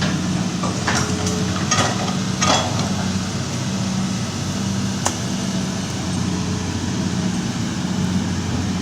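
Heavy diesel excavator engine running steadily with a low pulsing hum, with a few short metallic clatters in the first three seconds and one sharp click about five seconds in.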